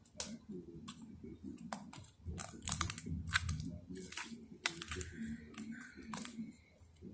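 Sticky homemade slime without foam beads being squeezed and worked in the hands, giving irregular small wet clicks and pops over a soft squishing.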